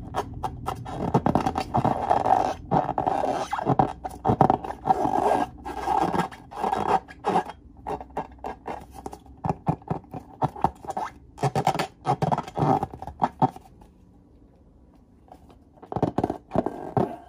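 Hands rubbing and squeezing filled latex balloons: irregular rubbery squeaks and scratchy rubbing strokes, which stop for about two seconds near the end and then start again.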